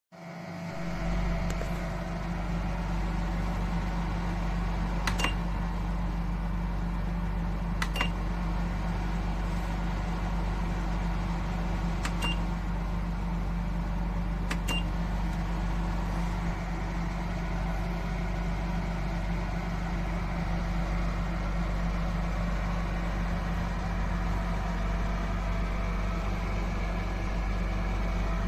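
A steady mechanical hum with a deep rumble switches on abruptly. Four short clicks, each with a brief high beep, come in the first half.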